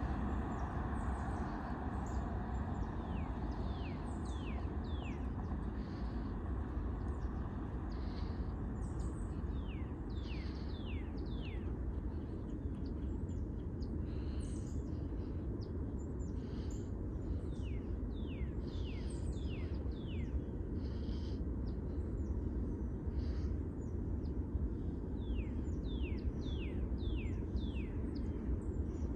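Songbird calling repeatedly in quick runs of high chirps that slur downward, over a steady low rumble.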